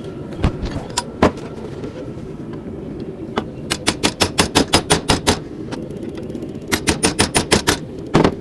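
Hand hammer striking a chisel on hot steel held in a vise, deepening grooves in a forged feather. A few single blows, then two quick runs of sharp metallic strikes at about seven or eight a second, over a steady low rumble.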